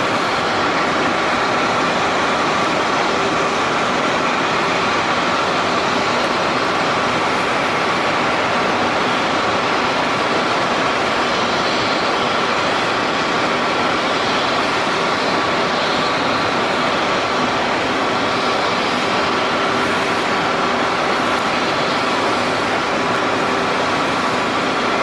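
Steady, loud machinery drone with a few steady whining tones over it.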